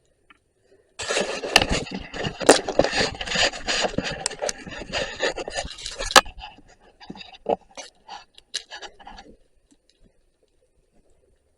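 Rough scraping and rubbing for about five seconds, with sharp clicks mixed in. It then thins to scattered clicks and knocks that stop a couple of seconds before the end.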